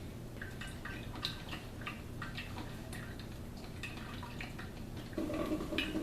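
Drip coffee maker running a vinegar-and-water cleaning cycle: small irregular drips and ticks of liquid. About five seconds in, a steady low hum joins.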